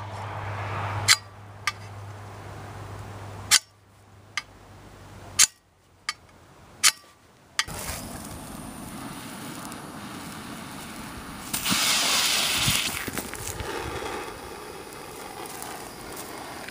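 A ferro spark rod is scraped against the edge of a steel shovel in about eight short, sharp strikes, failing to light the charge. A hand propane torch then hisses steadily, and about 11.5 s in the Cadweld One-Shot's exothermic copper welding charge catches, giving a louder fizzing rush for about a second before the torch hiss carries on.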